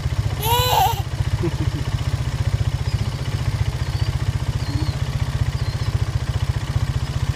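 Small motor vehicle engine idling with a steady, fast low putter. A child gives a short vocal sound about half a second in.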